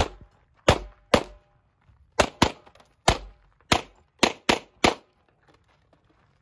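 Pistol fired rapidly, about ten shots in quick pairs and singles over five seconds, each crack followed by a brief echo; the firing stops about five seconds in.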